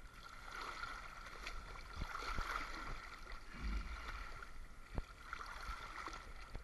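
Sea water sloshing and splashing around an action camera held at the waterline by a swimmer, with a few sharp knocks.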